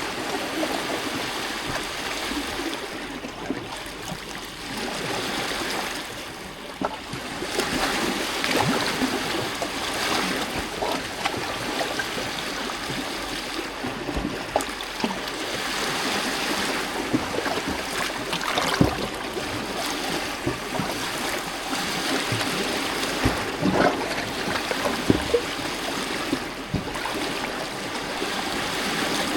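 Small lake waves lapping and splashing against rocks, a continuous wash that swells and eases every few seconds, with many short sharp splashes.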